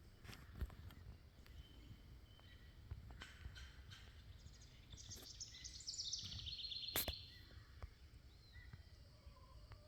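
A small songbird's rapid high trill, stepping down in pitch, starting about five seconds in and lasting about two seconds, with a sharp click near its end, over faint outdoor background noise.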